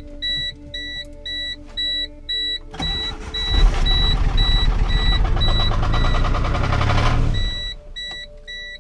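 1997 Geo Metro engine turned over on its first start attempt after a spun rod bearing repair. It runs loudly and unevenly for about four and a half seconds, then stops abruptly, and it does not sound good. Throughout, the car's warning chime beeps steadily at about three beeps a second.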